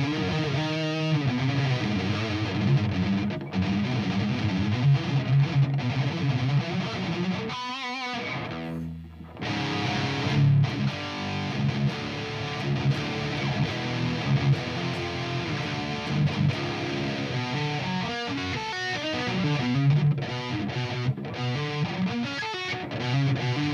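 Distorted electric guitar playing riffs and strummed chords through a high-gain SLO-style tube amp, driven by a Keeley-modded Maxon OD808 overdrive and miked with a Shure SM57. The playing stops briefly about nine seconds in, then carries on.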